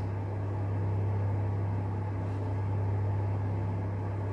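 Steady low electrical hum with a faint even hiss, unchanging throughout: background room noise with no distinct event.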